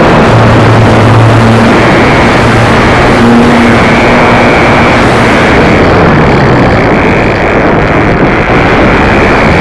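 Model airplane engine running steadily at high power, loud and buzzy, with a dense rushing noise over it.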